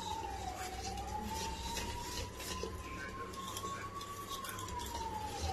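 A wire whisk beating chocolate cake batter in a stainless steel bowl: soft, irregular scraping and swishing strokes against the metal. A faint tone slowly falls and rises in pitch underneath.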